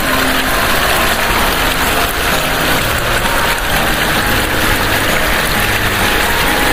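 Small motor running steadily, a continuous even whirring hiss with a faint hum and no change in level.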